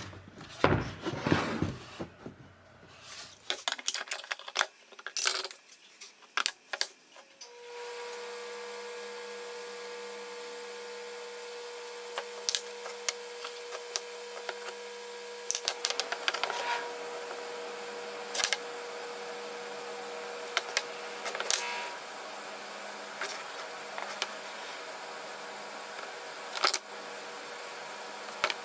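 Scattered clicks and knocks of wood and tools being handled in a small workshop. A steady machine hum comes on about seven seconds in and runs under the knocks.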